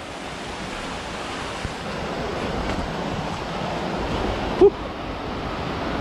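Steady rushing of a waterfall and its creek, with one brief pitched blip about three-quarters of the way through.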